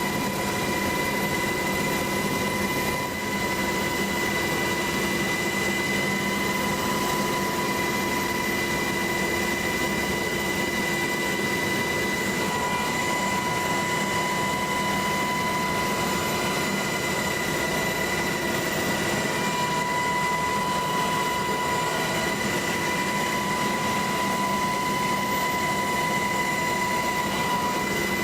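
Helicopter running steadily: an even roar with a constant high whine over it, as heard from inside the helicopter.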